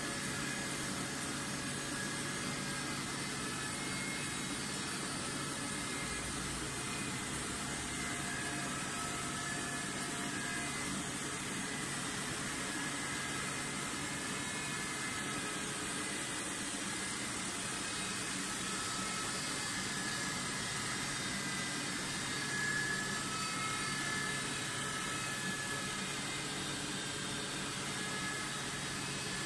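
Steady machinery noise of a polypropylene filament-yarn spinning and draw line plant: an even hiss with a few steady whining tones held throughout, unbroken and without strokes or knocks.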